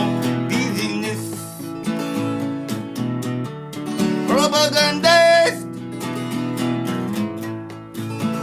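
Music: a song's instrumental passage led by strummed acoustic guitar, with a bright held, wavering note about halfway through.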